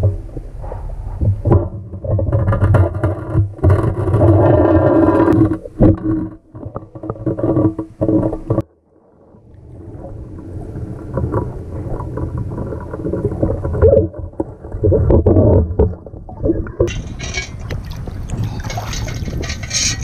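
Muffled underwater scraping and rumbling of a perforated stainless-steel sand scoop digging into a lake bed, heard from a camera mounted on the scoop. The sound cuts out briefly about halfway through. Near the end it turns to splashing and a hiss as the scoop breaks the surface.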